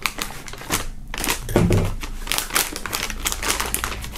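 Scissors cutting through a foil pouch along its seam: a rapid, uneven series of sharp snips, with the foil crinkling as it is handled.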